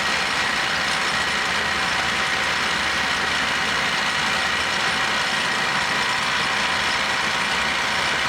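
1961 LeBlond 4025NK heavy-duty gap lathe running, its rapid-traverse motor driving the cross slide in reverse: a steady whir of gears with a constant high whine.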